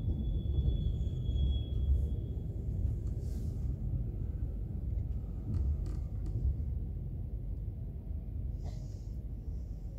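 Steady low rumble inside the passenger car of an ES2G "Lastochka" electric train under way, with a few faint clicks.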